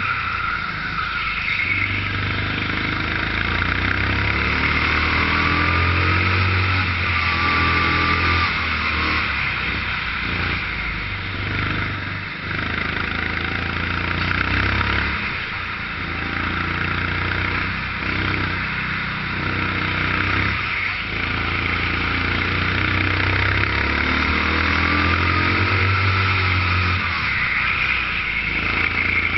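Onboard sound of a 13 hp Sodikart rental kart's four-stroke engine driven hard around a lap. The revs rise and fall over and over, with short drops in level as the driver lifts off for the corners.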